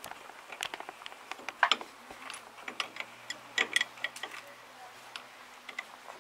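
Irregular metallic clicks and clinks of a hand wrench working on the chain drive and sprockets of a CLAAS Rollant 46 round baler, with the sharpest knocks about a second and a half in and again near the middle.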